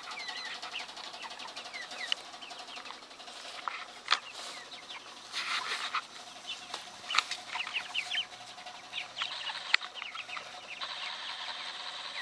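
A flock of white broiler (meat) chickens clucking and peeping, many short high calls overlapping. A few sharp knocks stand out, and a faint steady hum runs underneath.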